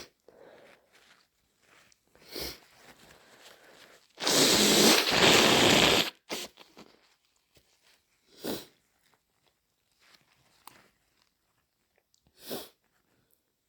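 A person with a head cold blowing their nose hard once, a loud snotty blow lasting about two seconds, about four seconds in. A few short nasal bursts come before and after it.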